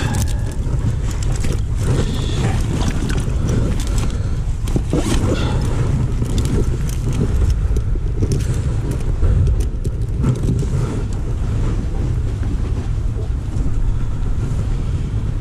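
Wind buffeting the microphone: a steady low rumble, with scattered small clicks and rustles.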